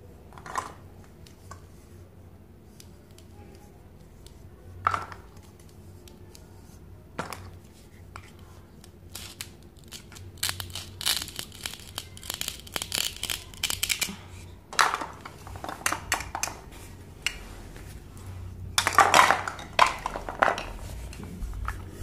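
Plastic toy fruit pieces knocking and clicking against each other as they are handled, with a few louder clacks. About ten seconds in, a few seconds of quick scratchy tearing as a toy plastic knife pulls apart the hook-and-loop-joined halves of a toy ice cream cone.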